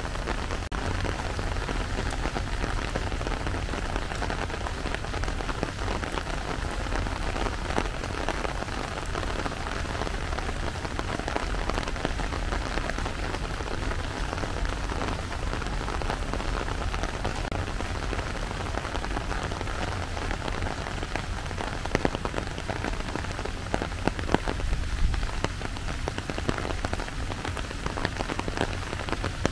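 Steady rain falling, a dense wash of small drop hits, with a few louder, sharper drips in the last several seconds.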